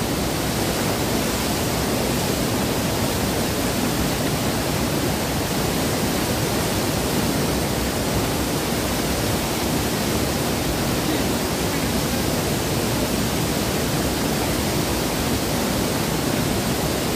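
River rapids: white water rushing steadily around boulders, a constant loud rush.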